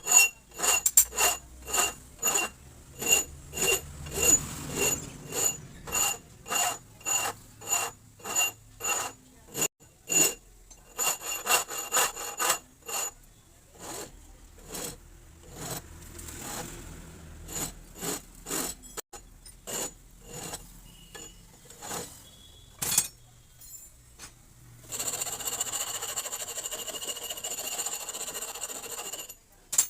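Rasping hand strokes on a metal shock-absorber part, about two strokes a second at first with a faint metallic ring on each, then slower and scattered, then a few seconds of continuous rubbing near the end.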